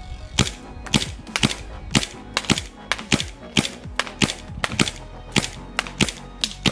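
G&G GPM92 Silver Limited Edition gas blowback airsoft pistol (Beretta M92FS replica) firing semi-auto on 145 PSI gas. It lets off a quick string of sharp shots with slide clacks, about two to three a second and unevenly spaced.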